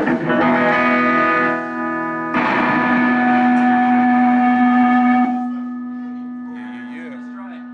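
Telecaster-style electric guitar through an amp: a strummed chord, then a second chord about two and a half seconds in that is left to ring and slowly fades out. The guitarist is testing the sound of a borrowed amp that he is still figuring out.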